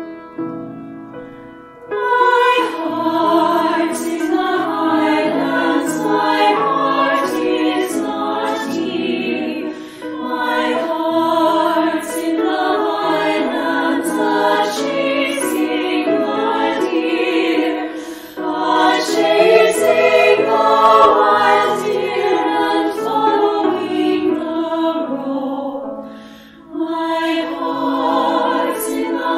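Outro music: choral singing, several voices sustaining notes together in long phrases with brief breaks between them.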